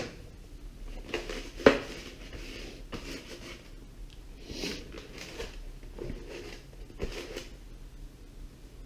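Hands handling and rubbing a thin Lexan (polycarbonate) RC car body shell to clean off oil and nitro residue. There is a sharp knock of the plastic shell under two seconds in, then several short scrubbing and crinkling noises.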